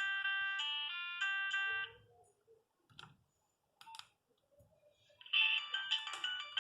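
Nokia 3510 polyphonic ringtone playing a melody of bright synthesized notes, which stops about two seconds in. After a quiet gap with two short clicks, the next ringtone starts a little after five seconds in.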